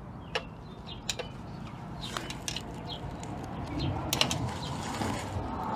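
Light, scattered metallic clicks and taps of small hub parts and hand tools being handled while a 4x4 Ford Ranger's front locking hub is taken apart, with handling and rustling noise growing louder near the end.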